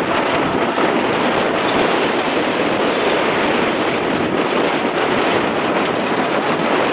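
Loud, steady engine noise from heavy machinery running without pause.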